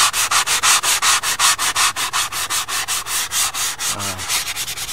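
Coarse side of a hand sanding block rubbed back and forth across the bare, paint-stripped wood of an old window sash, in quick, even strokes.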